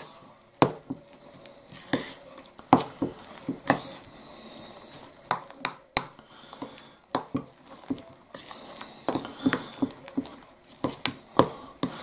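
A metal spoon stirring and mashing soft ice cream and cake crumbs in a glazed ceramic bowl: a soft scraping with irregular clinks of the spoon against the bowl.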